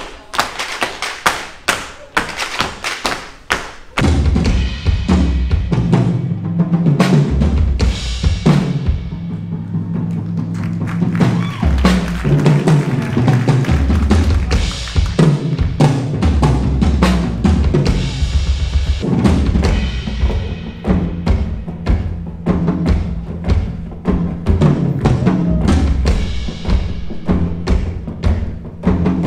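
Tap dancing in a stage show: rapid, sharp shoe taps, joined about four seconds in by a backing track with a low bass line and drums while the percussive taps continue.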